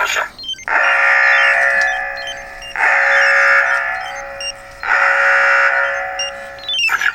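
Talking car-alarm decoder module sounding an electronic alert tone three times in a row, each a rich pitched tone lasting about two seconds that starts sharply and fades.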